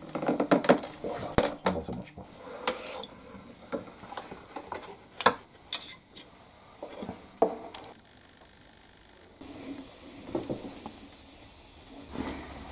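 Hand-operated frame underpinner clacking as it joins the mitred corners of a wooden frame moulding, with moulding pieces knocking on its metal and wooden base: a quick run of sharp clicks in the first two seconds, then scattered knocks. The clicks stop about eight seconds in, and a faint steady hiss follows.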